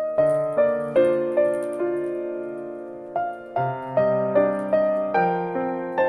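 Soft solo piano music: gentle notes struck one after another, each ringing and fading, over held lower chords.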